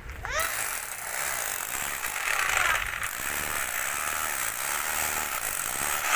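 Corded electric power tool grinding into stone, a steady hiss of cutting that grows louder for a moment about two to three seconds in.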